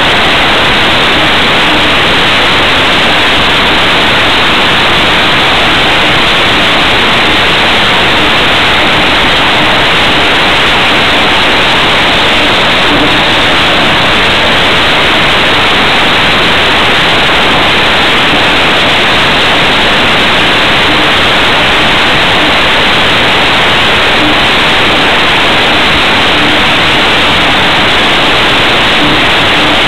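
Loud, steady rush of air over a camera mounted under an aircraft's wing in flight, with a faint, steady engine hum underneath.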